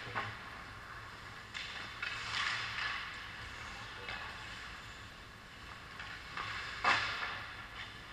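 Ice hockey rink sounds: distant knocks of sticks, puck and boards from play at the far end, the sharpest about seven seconds in, with a scraping hiss of skates on ice a couple of seconds in, over a steady low hum of the rink.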